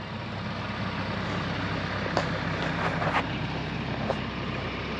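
An engine idling steadily, a low even hum, with a few faint ticks about two and three seconds in.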